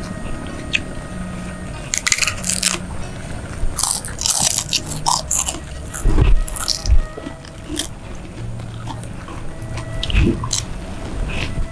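Close-miked crunching and chewing as crisp kerupuk crackers are bitten and eaten, in bursts about 2 s in, around 4 to 7 s, and again near the end, over soft background music.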